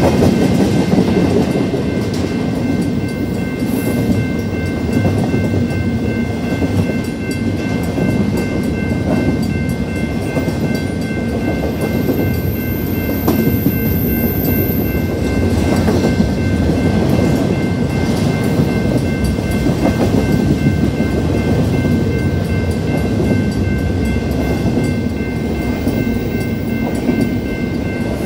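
Empty intermodal freight cars rolling steadily past a grade crossing, with a continuous rumble of wheels on rail and light clacking. The crossing's mechanical bell rings without pause above it.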